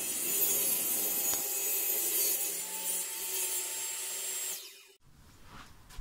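Table saw ripping a sheet of plywood: a steady, loud cutting noise that fades and stops abruptly about five seconds in.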